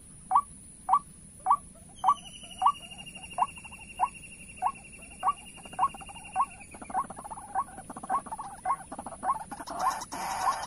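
White-breasted waterhen calls: short, sharp notes repeated evenly, a little under two a second, used as the lure to draw birds to the snares. A high, steady trill sounds over them from about two seconds in until past the middle.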